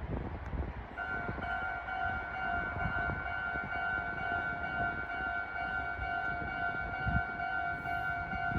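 Japanese railway level-crossing electronic alarm bell that starts about a second in and rings steadily at a fixed pitch, over a low rumble.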